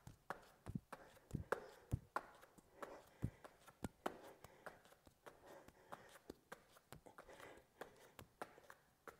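Hands coming down on a yoga mat during plank shoulder taps: a faint, uneven run of soft taps and thumps, about two to three a second.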